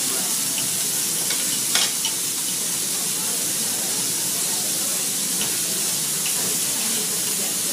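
Chicken and vegetables sizzling steadily on a hot steel teppanyaki griddle while a metal spatula stirs and clinks on the plate, with one sharper clink about two seconds in.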